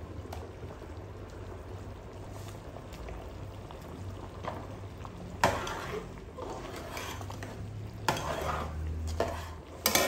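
Rice khichdi bubbling at a boil in a metal pot. A steel ladle stirs it from about halfway, scraping against the pot, and there is a sharp metal clank near the end.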